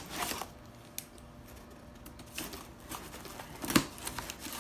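Packaging being cut open to free an item from its box: a few scattered sharp clicks and snips, the loudest a little under four seconds in.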